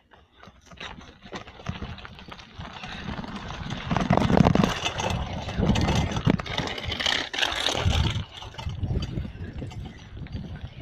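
Wind buffeting the microphone during a bicycle ride, a rough, uneven rumble with scattered knocks and rattles. It grows louder about four seconds in and eases near the end.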